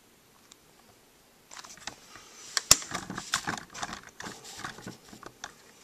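A run of light clicks and rattles from something being handled, starting about a second and a half in, with one sharp click near the middle.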